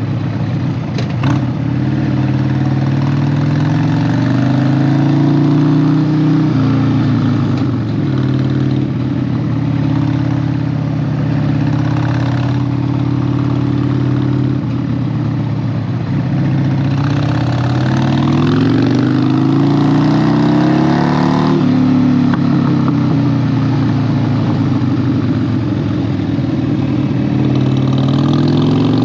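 Harley-Davidson 1200 V-twin motorcycle engine running under way. Its pitch climbs as it accelerates and drops sharply at each gear change, about six seconds in and again past the middle after a long pull.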